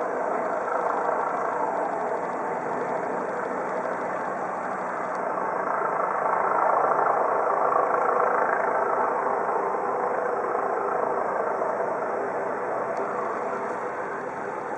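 Steady vehicle engine noise with no clear rhythm, growing a little louder about six to nine seconds in.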